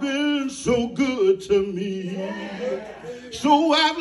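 A man singing a gospel song into a microphone, amplified through the hall's sound system. He holds one long, low note through the middle before coming back in louder near the end.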